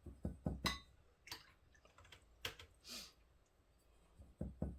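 Paintbrush tapping and swishing in a watercolour palette as paint is mixed. There is a quick run of light clicks in the first second, then scattered taps and a couple of short brushy swishes.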